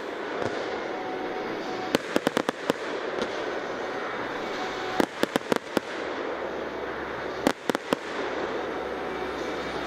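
Aerial fireworks shells going off: three clusters of sharp, quick bangs, about two, five and seven and a half seconds in, over steady background noise.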